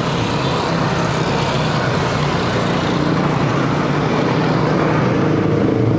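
Road traffic: a steady rush of noise with the hum of vehicle engines running close by, and a second, higher engine hum joining about three seconds in.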